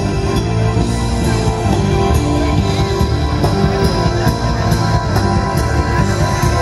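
Live band music heard from inside an outdoor concert crowd: sustained electric guitar chords over bass and drums, with a cymbal hitting about twice a second.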